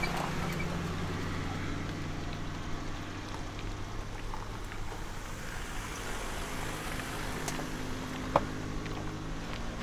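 A car's engine running at low speed behind the trikes: a steady, low, even hum. There is a single sharp click about eight seconds in.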